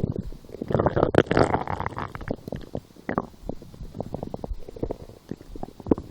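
A person's stomach gurgling and growling. A loud, bubbling stretch lasts about a second and a half, starting near the start, then gives way to scattered short pops and squelches. The uploader takes these noises for hunger.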